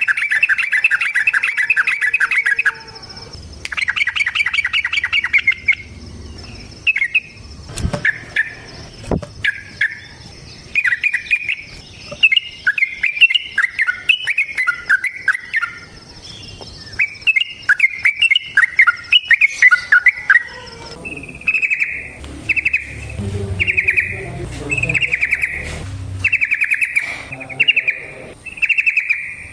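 Yellow-vented bulbul (trucukan) singing: two fast trilled bursts in the first few seconds, then a long run of short, repeated phrases one after another, as in the long 'ropel' song used to provoke other trucukan into singing. A faint steady high insect-like tone sits underneath through most of the first part.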